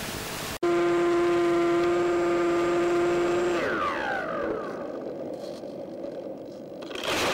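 Electric motor and propeller of a Multiplex EasyStar RC plane: after a moment of hiss that cuts off abruptly, a steady whine that falls in pitch about three and a half seconds in as the motor spins down, leaving a rushing hiss, with a brief burst of noise near the end.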